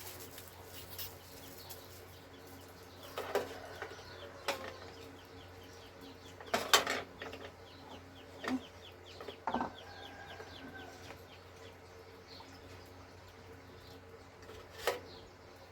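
Spoons and bowls clinking during a noodle-soup meal: a handful of scattered sharp clinks, the loudest about seven seconds in. Birds chirp faintly throughout.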